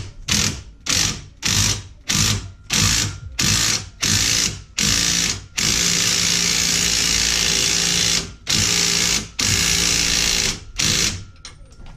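Impact wrench with a 24 mm socket running a nut onto a press-fit suspension bolt, drawing the bolt back into its bushing. It fires in about ten short bursts, then runs for nearly three seconds, then fires a few more short bursts.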